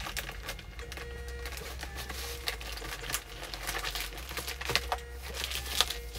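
A shipping label printer feeding labels in short repeated runs, with the crinkle and rustle of a plastic mailer bag being handled.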